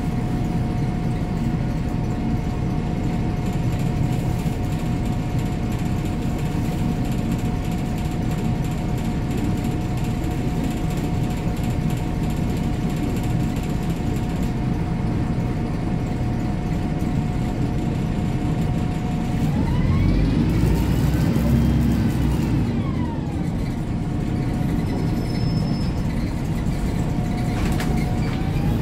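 MAN 18.220 diesel bus heard from inside the passenger cabin while under way: a steady engine and road rumble with a constant drivetrain whine. About twenty seconds in the whine glides up in pitch and back down, and near the end it begins rising again as the bus picks up speed.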